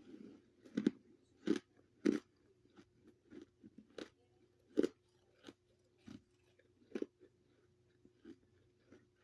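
Close-up chewing of freezer frost: a run of crisp, irregular crunches, several loud ones in the first five seconds, then fewer and softer ones as it is chewed down.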